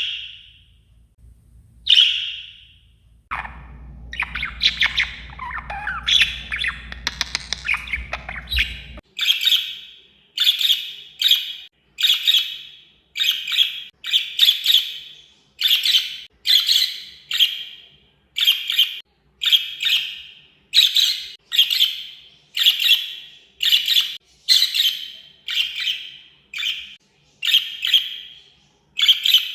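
Parrots calling: two single high calls, then several seconds of rapid chattering over a low rumble. From about nine seconds in, one parrot repeats a loud, high-pitched squawk a little more than once a second.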